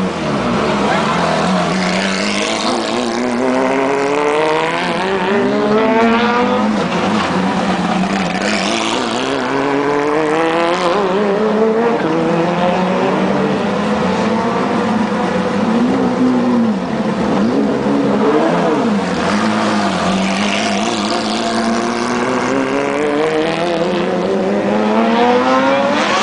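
Porsche 997 GT3 Cup race cars' flat-six engines. One engine holds a steady low note while others rev up and fall back several times, the pitch rising and dropping as the cars pull away.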